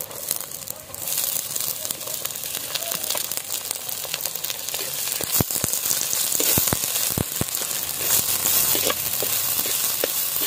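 Chopped onions sizzling as they hit hot oil in a clay pot, the sizzle jumping up about a second in and staying loud. Through the middle, a few sharp knocks and scrapes from the perforated metal ladle against the pot as the onions are stirred.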